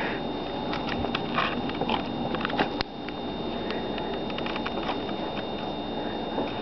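A door swung open and released, with an LCN 4011 hydraulic door closer drawing it shut: a few light clicks and knocks, then one sharp click about three seconds in as the door latches.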